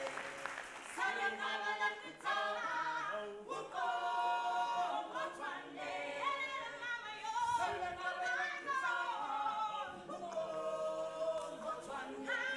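A group of voices singing together a cappella, with held, changing notes in several parts of harmony and no instruments.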